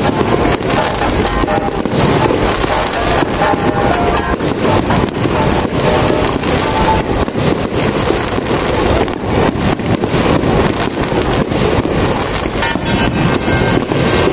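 Aerial fireworks going off in a dense, continuous barrage of bangs, pops and crackles, with music playing underneath.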